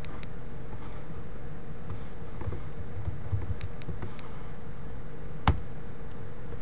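A few computer keyboard and mouse clicks over a steady background hum and hiss. The clicks fall in a small cluster in the middle, and one sharper click comes about five and a half seconds in.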